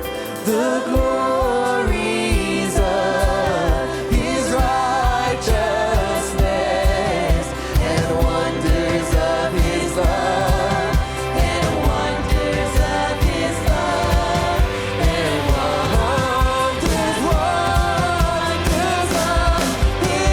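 Live contemporary worship band playing, with several voices singing together over a steady kick-drum beat that comes in about a second in.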